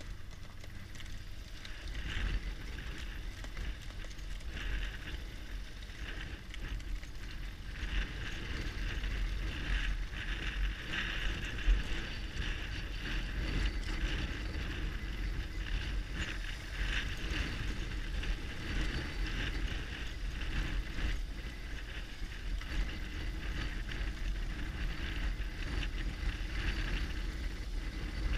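BMW R1200GS Adventure's boxer-twin engine running at low speed over a rough dirt track, the note swelling and easing as the throttle changes, under a steady low rumble of wind on the microphone.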